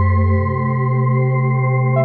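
Background music of long held chords; the bass moves to a new note about half a second in.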